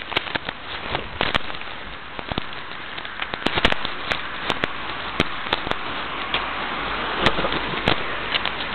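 Handling noise on a small camera's built-in microphone as it is carried while walking: steady rustling hiss broken by irregular sharp clicks and crackles, several a second.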